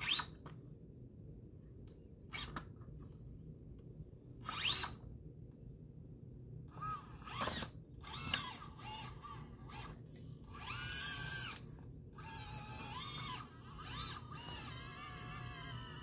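Axial SCX24 micro RC crawler's electric motor and gear drivetrain whining as the throttle is worked. Short bursts of whine with the pitch sweeping up and down come first, then from about seven seconds in longer stretches of whine that rise and fall with the throttle as it crawls over rocks.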